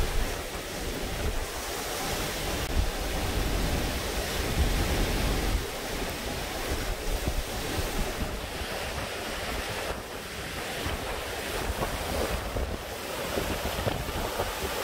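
Hurricane Delta's winds gusting, rumbling on the microphone.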